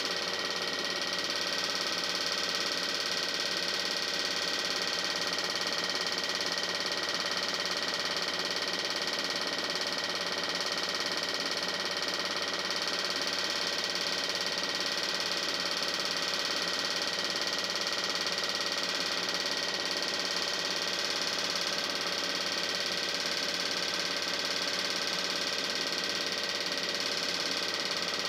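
Film projector running steadily, its mechanism whirring without change.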